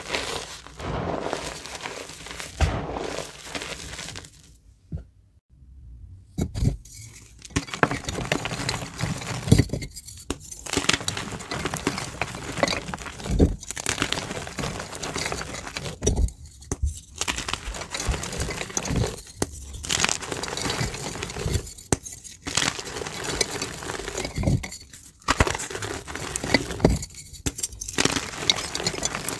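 Pressed gym chalk blocks crushed and crumbled in bare hands: dry crunching and crackling in repeated squeezes, with short pauses between them. Before this, hands rub through loose chalk powder, which stops about four seconds in with a brief silence.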